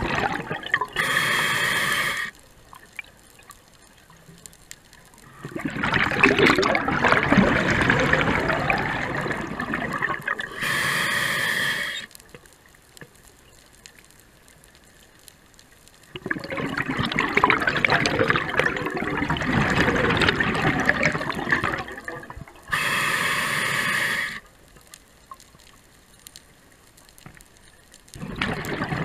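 Scuba diver breathing through an open-circuit regulator: a short, even hiss of inhalation through the second stage, then a few seconds' pause, then a long gurgle of exhaled bubbles, three breaths in all.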